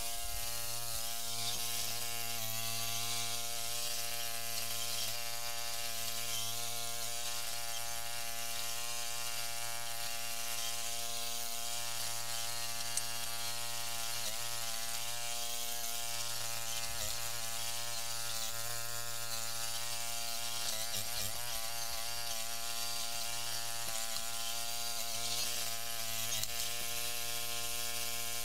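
1973 Montgomery Ward Gilson hydrostatic garden tractor's 16 hp Briggs & Stratton engine running steadily, its pitch wavering briefly a few times as it works under load.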